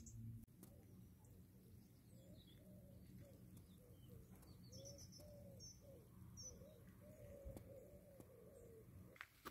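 A pigeon cooing faintly: a long run of low, rising-and-falling notes. A few short high chirps of small birds come in between.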